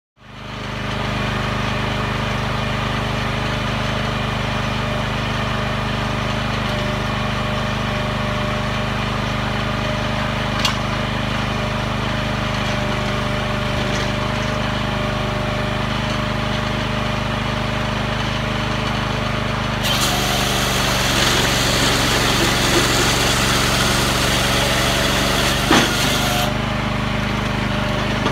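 The 14 hp Kohler engine of a Range-Road RR20T-4 firewood processor running steadily. About two-thirds of the way through, a louder hiss joins it for about six seconds, and there are a few sharp knocks.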